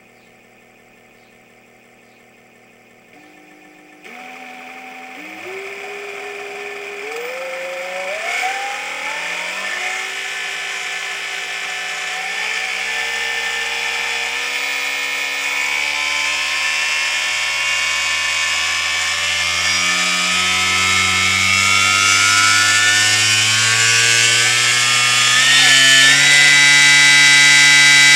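Turnigy 80-100 brushless outrunner motor running unloaded at 48 V on a hall-sensored controller, speeding up: its electric whine climbs in pitch, in steps at first and then more smoothly, and grows steadily louder.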